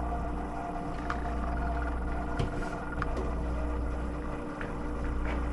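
A steady low hum, with a few faint, brief clicks and scrapes as a carbon fiber skid pipe is slid through the helicopter's plastic landing gear clamps.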